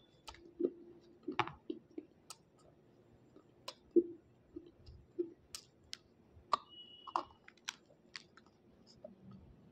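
Close-up eating of a water-soaked white chalky stone: irregular sharp crunching clicks as it is bitten, with soft chewing and lip sounds in between.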